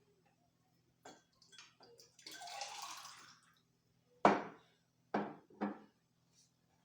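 Juice poured from a jug into a glass for about a second, after a few light handling clicks. Three short, louder sounds follow near the end, the first the loudest.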